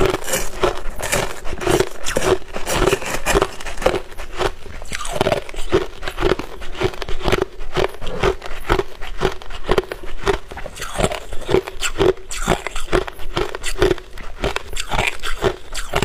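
Hard crushed ice being chewed: a rapid, uneven run of sharp crunches, several a second.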